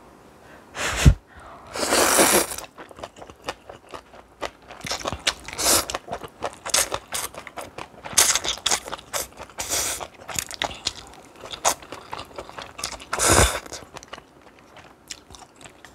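Close-miked eating sounds of stir-fried noodles and kimchi being eaten. There is a short noisy burst about two seconds in, then steady chewing with many small crunchy, wet clicks. Two low thumps come about a second in and again about thirteen seconds in.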